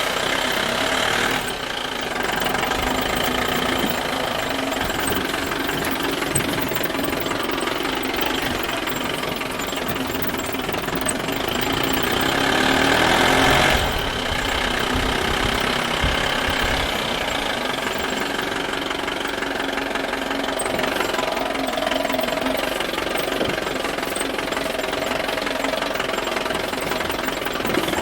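A toy vehicle running with a steady, engine-like sound. It gets louder about twelve seconds in and drops back sharply about two seconds later.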